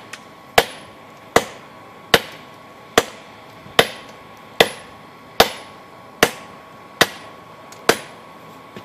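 Blacksmith's hammer striking hot steel on an anvil, forging an old adjustable wrench into a knife blade: about ten evenly paced blows, roughly one every 0.8 seconds, each with a short ring.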